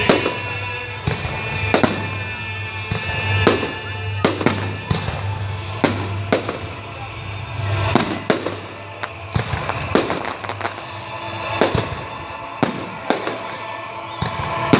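Festive fireworks salute: aerial shells bang in quick succession, about one or two sharp reports a second, each with a short echoing tail. Music plays steadily underneath.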